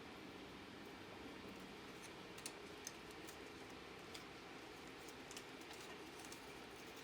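Faint scattered clicks and taps of a PCIe riser card and its cables being handled and fitted, over a steady low hum.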